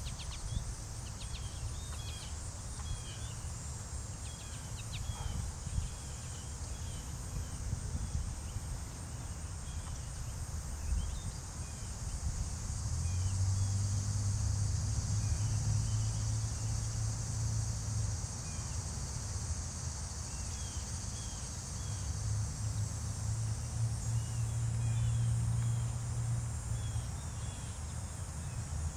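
Steady, high-pitched chorus of late-summer insects, crickets or katydids, with short chirps scattered through it. A low hum comes up underneath about halfway through and stays to near the end.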